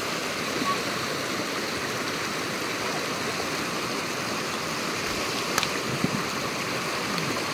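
Stream water rushing steadily over stones, with a light click about five and a half seconds in.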